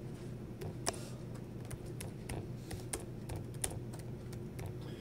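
Computer keyboard typing: irregular quick key clicks, several a second, over a steady low hum.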